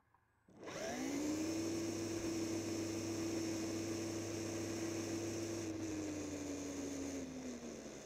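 Remote-control truck's electric motor and gear drivetrain whining as the truck pulls away from a stop about half a second in. A steady whine with a hiss over it follows, dropping in pitch near the end as the truck slows.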